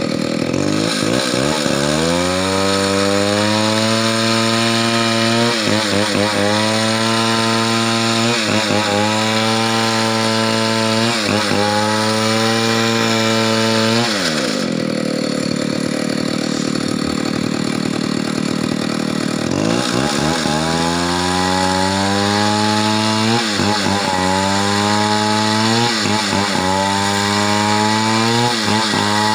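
Two-stroke chainsaw revving up to full throttle and cutting wood, its pitch dipping briefly several times as the chain bites. About halfway through it drops back to idle for about five seconds, then revs up and cuts again.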